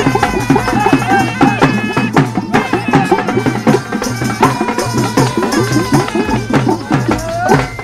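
Haryanvi folk musicians playing: drums beaten in a quick, steady rhythm, with a melody line that bends up and down over them.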